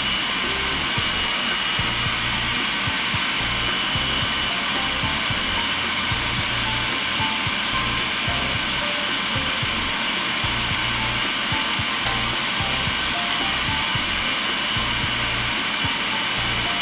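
Electric food processor running steadily at full speed, blending ricotta cheese and milk into a smooth pâté paste.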